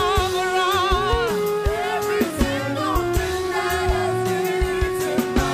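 Live gospel music: sung vocal lines with wavering vibrato over a band with held notes and steady drum hits.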